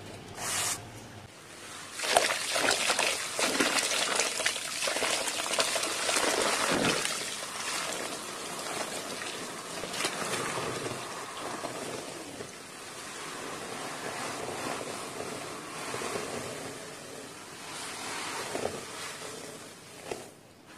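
Dry red dirt powder being poured into and worked by hand in a basin of water: a dense crackling hiss that starts about two seconds in, is loudest for the next few seconds, then eases off.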